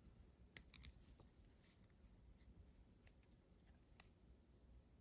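Near silence with a few faint small clicks, the sharpest about four seconds in: tweezers and lock pins handled against a brass padlock as it is gutted.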